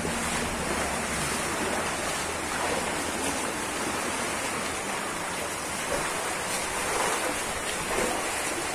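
Stream water rushing steadily out of a pair of culvert tunnels under a road, fed by a dam's reservoir: a constant, even rush with no pauses.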